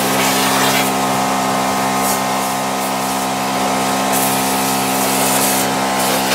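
Sisun portable pressure washer's small pump running with a steady hum while its spray hisses onto the truck's metal floor.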